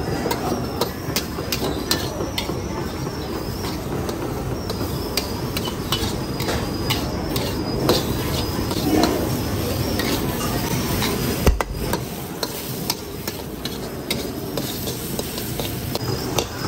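Metal wok spatula scraping and tapping against a steel wok while egg fried rice is stir-fried, in quick irregular strokes over a steady rushing background. One heavier knock comes a little past the middle.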